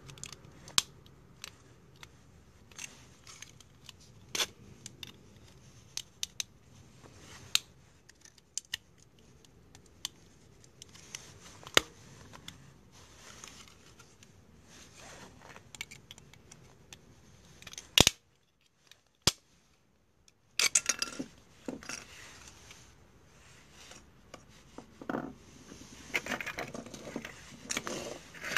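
Plastic smoke detector casings and parts being handled: scattered sharp clicks and light knocks of plastic, with a livelier run of clatter near the end.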